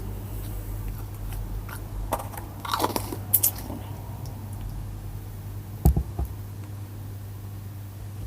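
Slime being handled and squeezed: scattered crackles and clicks, a cluster of them about three seconds in, and a thump about six seconds in, over a steady low hum.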